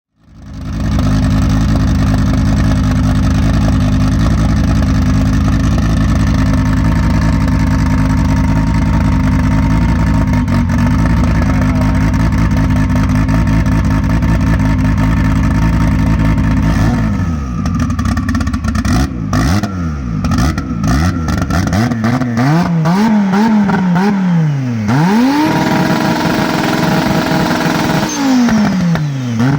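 Turbocharged 20-valve 2.2-litre five-cylinder engine of an 800+ hp Audi 80 B4 Quattro idling steadily, then revved in repeated blips from about halfway, its pitch rising and falling with each one. Near the end it is held briefly at a steady higher speed, drops, and is revved again.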